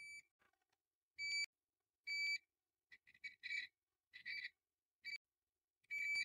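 Multimeter continuity beeper giving short, high beeps about once a second as the probes are touched across the stator's wires and steel stack. Some beeps are brief and broken. It beeps on every combination: the stator is shorted throughout.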